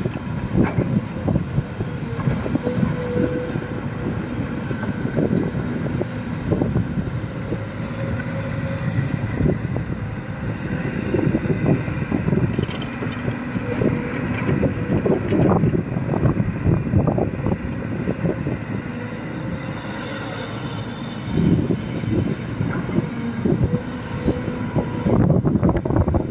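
Heavy diesel machinery at work, an excavator loading a tipper truck: a steady engine hum under load with uneven low knocks and rattles throughout.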